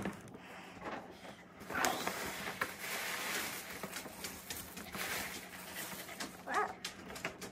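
A dog whimpering briefly over soft rustling and light clicks of handling.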